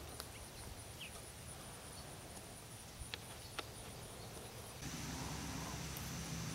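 Insects chirping in a fast, steady, high-pitched pulse, with a few faint ticks. About three-quarters of the way through it changes abruptly to a steadier high buzz over a low hum.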